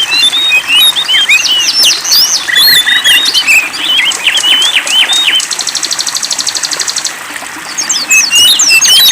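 Several songbirds chirping and singing in quick, varied whistled notes, overlapping densely. About five and a half seconds in, a fast, even trill runs for about a second and a half.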